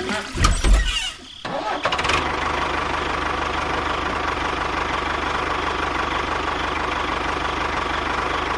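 An engine starts about a second and a half in after a brief thud and clatter, then runs steadily at idle with an even, fast pulse.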